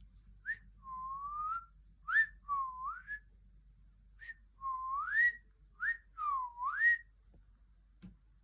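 Pet parrot whistling: a short sharp note followed by a longer swooping, rising whistle, repeated about four times.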